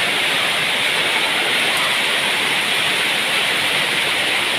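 Heavy rain pouring down, a steady dense hiss that does not let up.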